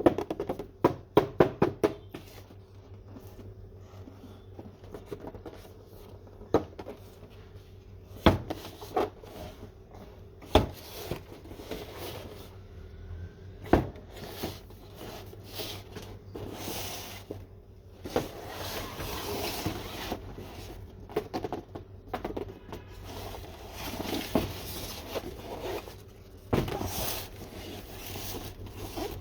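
Hands unboxing a 1:24 scale die-cast toy car: a quick run of clicks at the start, then scattered taps and knocks with stretches of rustling packaging.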